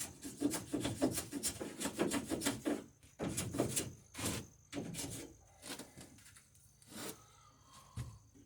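Hand-tool strokes scraping across wood, several a second for about the first three seconds, then a few slower single strokes. This is the stem of a wooden boat having its plank bevels trimmed so the surfaces meet.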